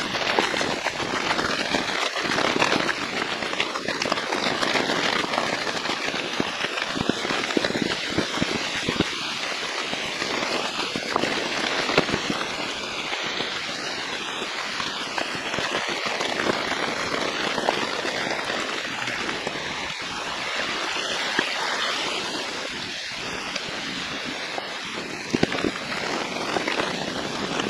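Steady rain falling, a dense patter of drops with many small crackling ticks.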